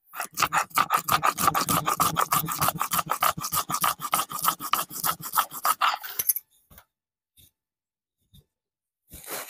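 Stone roller worked rapidly back and forth on a sil-batta grinding slab, scraping and crushing mustard seeds, garlic and chillies into masala paste. The grinding stops about six seconds in, leaving a few faint clicks.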